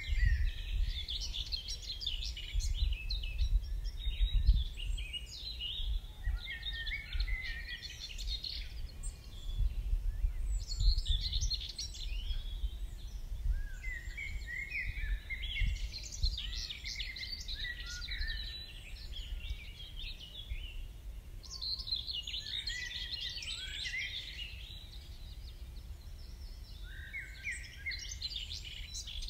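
Songbirds singing in the dawn chorus: bright chirping, warbling phrases lasting several seconds each with short pauses between. Underneath, a low wind rumble on the microphone that gusts more strongly in the first half.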